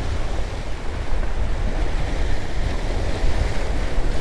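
Sea waves breaking and washing over the rocks of a jetty, with wind buffeting the microphone.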